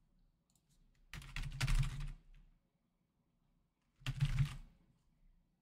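Typing on a computer keyboard in two quick bursts of keystrokes, one about a second in and a shorter one about four seconds in.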